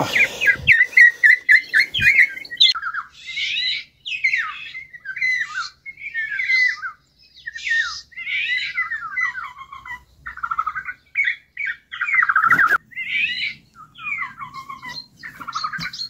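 Golden oriole calls: a long run of short, harsh, squawky and chattering notes, one after another. A single knock sounds about 12.5 seconds in.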